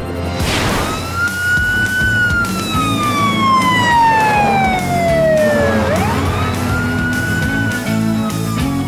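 Wailing siren of the cartoon rescue vehicles, over action background music. The pitch rises, falls slowly for about four seconds, then sweeps sharply up again and starts to fall. A short whoosh at the start.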